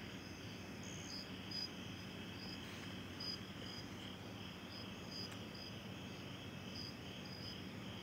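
Crickets chirping: short high chirps repeating irregularly over a faint steady hum.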